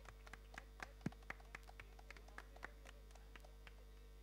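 Faint, scattered hand claps from an audience, irregular and several a second, thinning out and stopping near the end, over a steady electrical hum.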